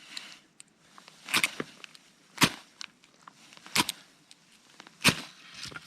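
Ferrocerium rod scraped with a striker: five short, sharp rasps, about one every second or so, throwing sparks onto a pile of magnesium shavings that are not yet catching.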